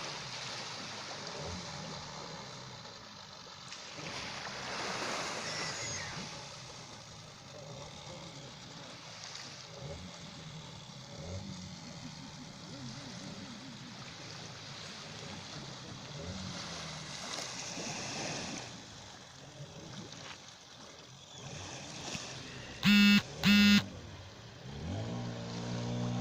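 Sea surf washing on the shore, a steady rushing hiss with faint voices under it. About three-quarters of the way through, two short, loud, high-pitched tones sound in quick succession, and near the end a low steady hum starts to rise.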